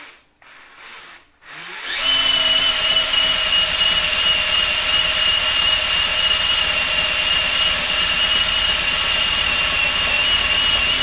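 Cordless drill run at high speed, spinning a buffing pad against a glass cooktop smeared with cooktop cleaner. A steady high whine comes in about two seconds in, holds an even pitch, and cuts off suddenly at the end.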